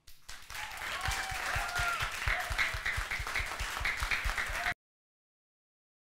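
Audience applauding, a dense patter of many hands clapping, which cuts off abruptly near the end.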